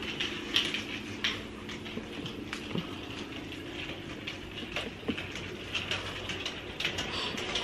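Whitmor slim wire-shelf rolling cart rattling and clicking on its small casters as it is pushed across a tile floor, with many irregular small clicks.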